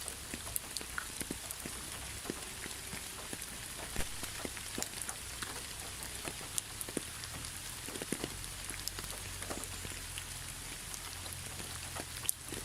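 Steady rain: an even hiss with many separate drops striking close by at irregular moments.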